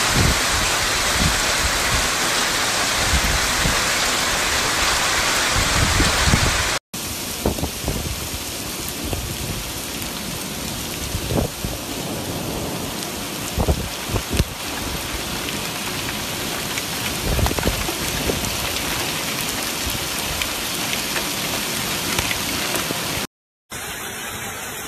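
Heavy rain pouring down in a violent storm, with gusty low rumbles of wind on the microphone. The sound changes abruptly about seven seconds in and again near the end, where it becomes a rushing flood of water.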